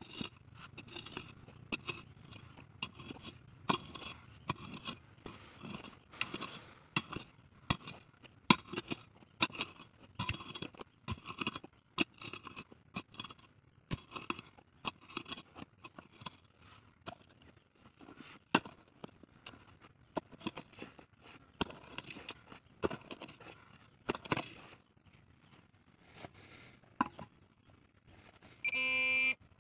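A short-handled hoe chopping and scraping into stony soil, with irregular knocks about one to two a second. Near the end a handheld pinpointer metal detector starts buzzing with a steady tone, signalling metal in the hole.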